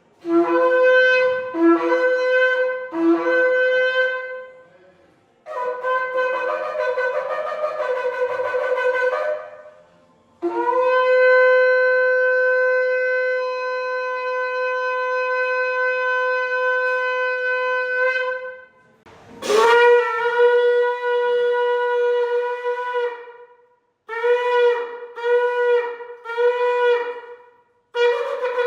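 Shofar (ram's horn) blowing a series of calls: three short blasts that each jump up from a lower note, a wavering broken run, then one long steady note held about eight seconds. A second long blast follows, then a run of short blasts near the end.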